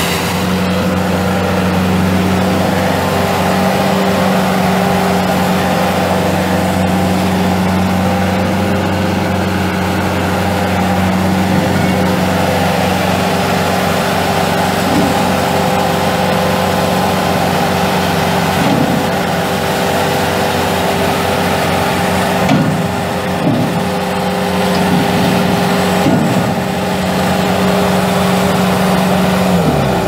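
Kubota 2.6-litre four-cylinder diesel engine of a Bobcat S205 skid steer running steadily at a high, even speed, with a few brief dips in pitch in the later part.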